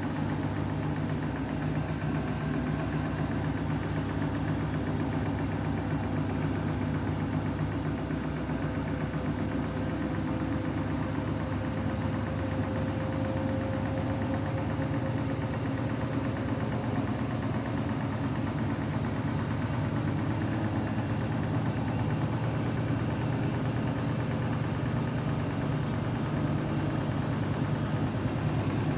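Beko WTK104121W washing machine running steadily after refusing to spin: a continuous motor drone with a faint higher tone that rises slightly about halfway through.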